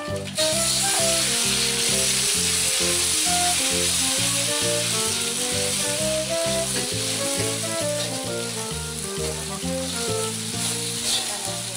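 Egg frying in hot oil in a wok, sizzling steadily as it is stirred with a metal spatula; the sizzle starts up about half a second in. Background music with a repeating melody plays underneath.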